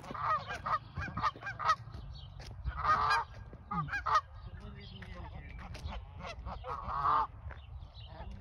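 Canada goose honking: a run of short honks, with longer drawn-out calls about three seconds in and again near seven seconds.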